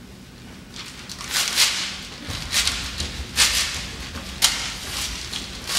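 Irregular swishes, thuds and shuffling of performers moving about a stage, with a low rumble under them from about two seconds in.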